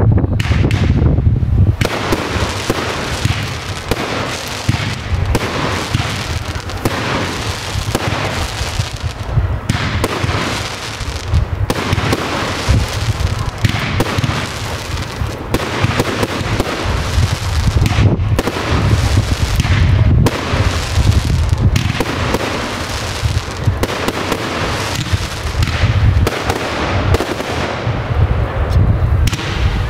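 Professional aerial fireworks display: a steady barrage of shells launching and bursting in the sky, bang after bang with barely a gap.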